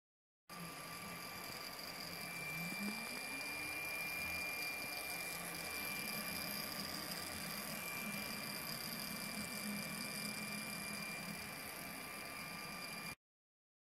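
Tronxy X5S 3D printer running a print: a steady whir with thin high whines, and low motor tones that shift in pitch as the print head moves. It cuts in about half a second in and cuts off abruptly near the end.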